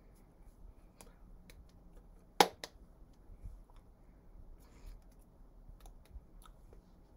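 Hands making sign language: faint scattered clicks and taps as fingers and palms meet, with one sharp slap about two and a half seconds in and a smaller one just after.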